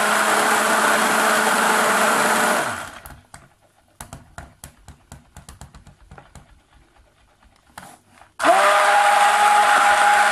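Stick blender motor running in cold-process soap batter. It stops about three seconds in, then a few seconds of light clicks and taps as the batter is stirred with the blender head. It switches back on near the end, pitch rising briefly as it spins up. The batter is being blended toward a thin trace.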